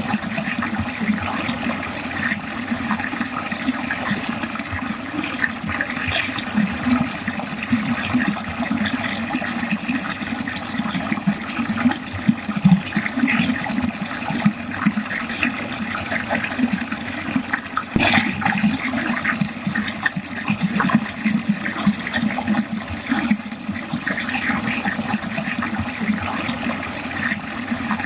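Water draining, flowing steadily down a drain. A single sharp click comes about two-thirds of the way through.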